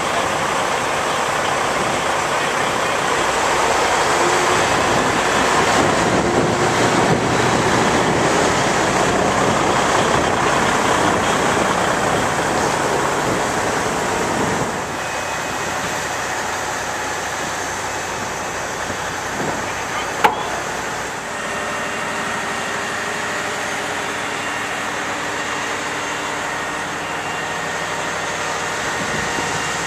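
Diesel engines of a mobile crane and a semi truck running steadily as a steady machinery hum. A single sharp click comes a little past two-thirds of the way through.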